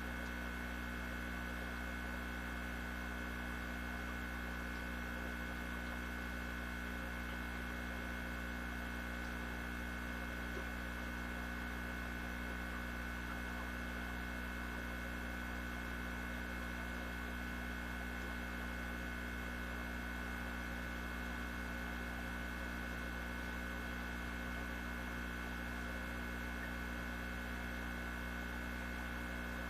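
Steady electrical hum with a constant high whine over it, unchanging throughout.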